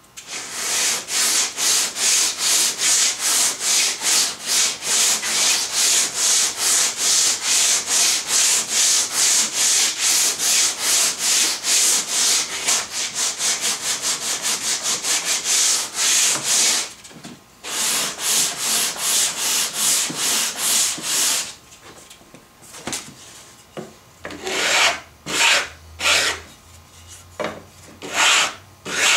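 Wooden hand sanding block with sandpaper rubbed back and forth along a wooden board: fast, even scratchy strokes, about four a second, with a short break just past the middle. Near the end the strokes come slower and separately.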